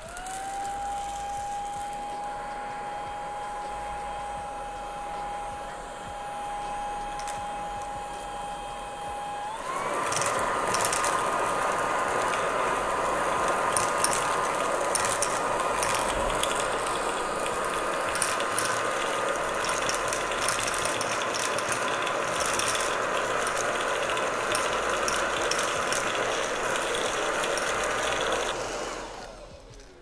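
Xiaomi Mi Vacuum Cleaner Light handheld vacuum running: the motor spins up to a steady whine, then about ten seconds in switches to a higher, louder setting, and from then on dry dog kibble rattles and clicks as it is sucked up through the brush nozzle. The motor winds down near the end.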